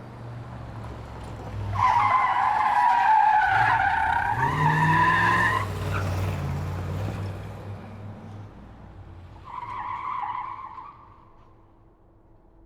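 Muscle car engine rumbling as it drives, with a long, loud tyre squeal as it skids, starting about two seconds in and lasting nearly four seconds while the engine revs up. A shorter second squeal follows a few seconds later, then the sound fades as the car moves off.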